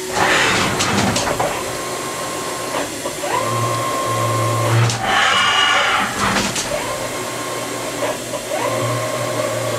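Haas HS-1RP horizontal machining center's CAT 40 spindle running a tap through a tapping cycle. The spindle motor's whine spins up, holds for a second or so and stops, three times, with a short hiss between runs.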